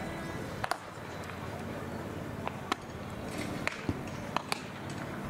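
Baseballs smacking into leather gloves during a game of catch: about half a dozen sharp pops scattered through, over faint voices.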